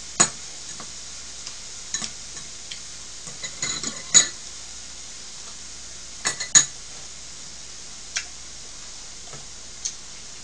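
Chopsticks clinking against dishes and the grill plate: a handful of sharp, irregular clicks, the loudest about four and six and a half seconds in. Under them, meat sizzles faintly and steadily on the tabletop griddle.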